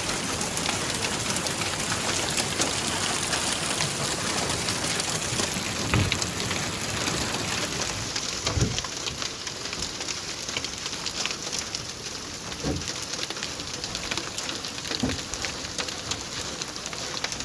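Hail and heavy rain pelting down: a dense, steady patter of many small hits, with a few dull low thumps along the way.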